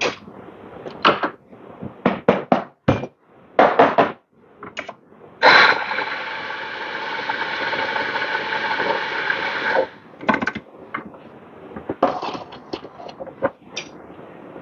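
Several sharp knocks and clacks of espresso gear being handled, then an electric coffee grinder runs steadily for about four seconds, grinding beans into a portafilter. A few lighter clicks and taps follow.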